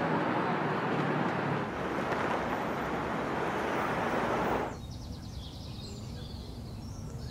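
Steady wash of city traffic noise, which drops off sharply about five seconds in to quieter outdoor ambience with faint high bird chirps.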